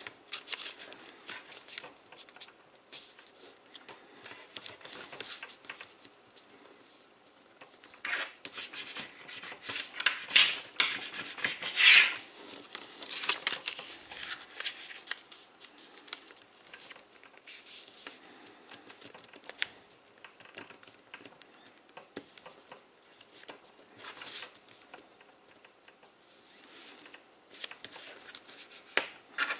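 A sheet of paper being folded and creased by hand: rustling, rubbing and scraping as fingers press and run along the folds. It comes in short scratchy strokes and is loudest around the middle.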